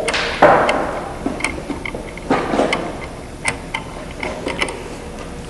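Light metallic clicks and knocks, irregular, as the arbor nut is unscrewed off a table saw's blade arbor and the wrenches are handled. There are a few louder knocks among the small ticks.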